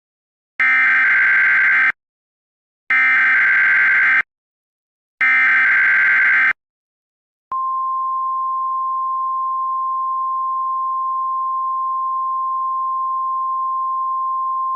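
Emergency alert signalling: three identical SAME digital header bursts, each a harsh screeching data tone lasting a little over a second. About seven and a half seconds in comes the steady single-pitch NOAA Weather Radio 1050 Hz warning alarm tone, which announces that a warning message follows.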